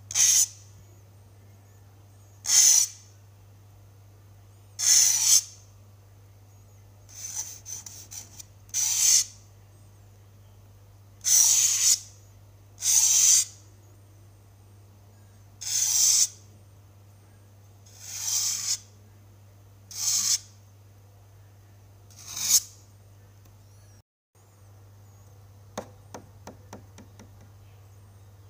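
Knife cutting a raw sweet potato on a wooden chopping block: about eleven short cutting strokes, one every couple of seconds, over a steady low hum. A few small clicks come near the end.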